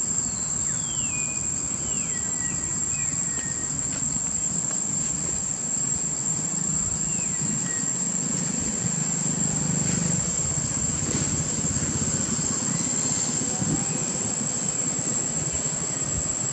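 Steady high-pitched drone of insects, with a few short falling whistled calls in the first few seconds and once more near the middle. A low rumble swells briefly around the middle.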